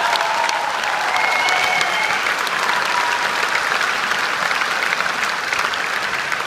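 A large audience applauding steadily after a stage performance, dense clapping with a few brief high tones over it in the first couple of seconds.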